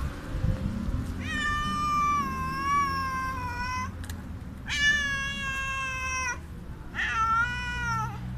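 Hungry street cat meowing very loudly: three long, drawn-out meows, the first lasting well over two seconds and the last falling in pitch at its end.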